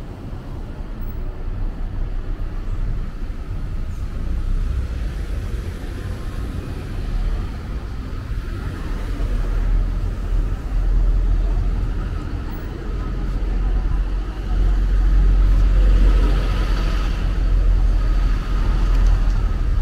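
Street traffic noise: a loud, heavy low rumble of passing cars that swells in the second half and peaks about three quarters through.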